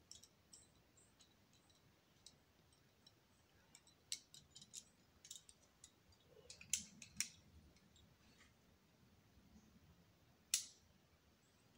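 Faint, scattered sharp clicks and clinks of climbing gear, carabiners and quickdraws on a harness and the belay rope handling, over near silence; a few are sharper, the loudest about ten and a half seconds in.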